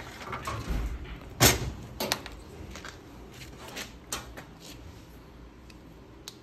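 Scattered clicks and knocks of a brass lamp's metal stem and switch being handled as the switch is opened up with a screwdriver, with one sharp knock about a second and a half in.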